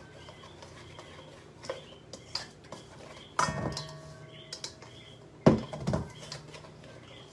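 Wire whisk stirring flour and dry ingredients in a stainless steel bowl: scattered light clicks and scrapes, then a clank about three and a half seconds in that leaves the metal bowl ringing, and a couple of heavier knocks a little later.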